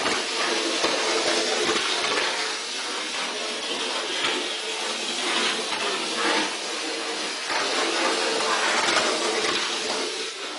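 Model railway locomotive running round the track: a steady motor whir with a hiss, and irregular clicks from the wheels on the rails.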